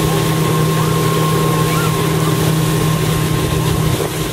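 Motorboat engine running steadily at speed while towing inflatable tubes, with water rushing in its wake.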